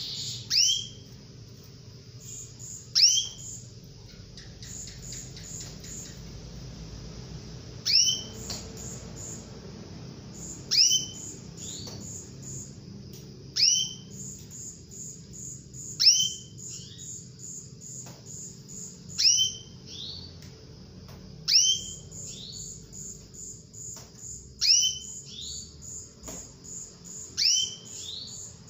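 Female domestic canary calling: a loud, sharp call that sweeps downward, often as a quick double note, repeated every two to three seconds. It is the hen's call to draw a male canary to answer. Faint rapid high-pitched pulsing runs underneath.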